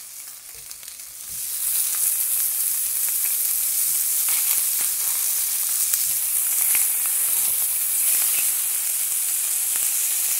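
Food frying in a hot pan: a steady sizzle with scattered small pops and crackles. It swells up over the first second and a half and then stops abruptly.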